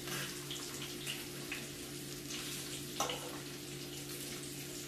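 Buffalo fish frying in hot grease in a pan, sizzling steadily with small crackles and pops, and one louder click about three seconds in. A steady low hum runs underneath.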